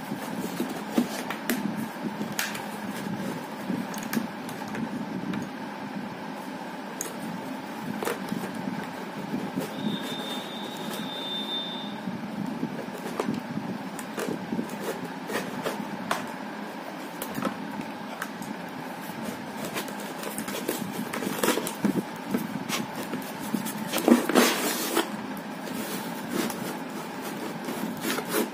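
Handling noise from a plastic full-face helmet being taken apart, with scattered clicks and rubbing of the shell and its fitted padded liner over a steady background hum. A louder burst of rubbing comes about three-quarters of the way through, and a brief thin high tone sounds for about two seconds near the middle.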